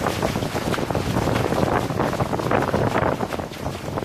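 Wind buffeting the microphone over water rushing and slapping against the hulls of a Hobie Getaway catamaran under sail, an uneven, gusty noise.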